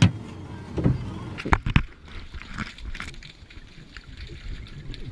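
A few sharp knocks against the camera, then underwater sound: the gurgling and crackle of a scuba diver's exhaled bubbles heard through the water.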